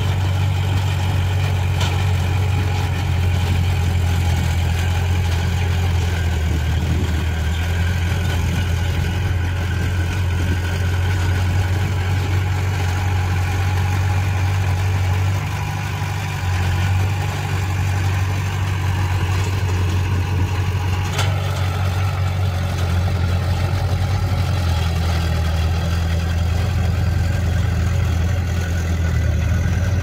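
Small crawler bulldozer's diesel engine running steadily under load as it pushes soil, a constant low drone that dips briefly a little past halfway.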